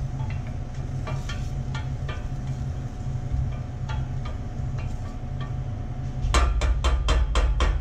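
Wooden spoon stirring chopped shallots and celery in olive oil in a stainless steel saucepan: light scrapes and taps against the pan over a steady low hum. Near the end comes a quick run of about seven sharp knocks.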